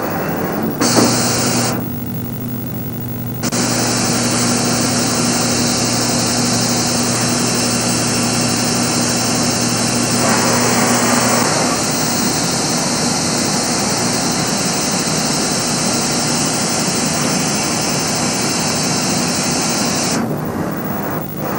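Mazak CNC machine running: a steady low motor hum under a loud, even hiss. The hiss drops out briefly a couple of seconds in, returns, and cuts off shortly before the end.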